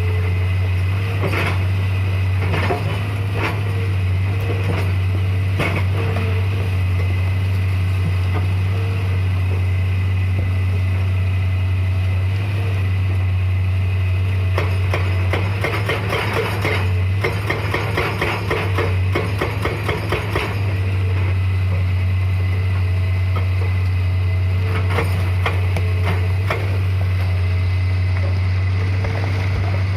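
Hitachi excavator's diesel engine running steadily, with a hydraulic breaker hammering: scattered single knocks, and a long run of rapid blows about halfway through.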